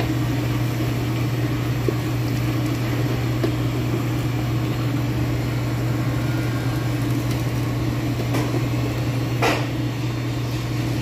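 Steady low mechanical hum of a motor running in the kitchen, with a brief scrape of a steel ladle in the soup pot about nine seconds in.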